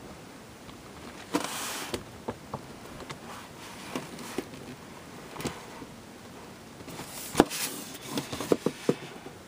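Cardboard model-kit box being handled: a brief rustle and scattered light taps and clicks, with one sharp click a little past halfway and a quick run of taps near the end.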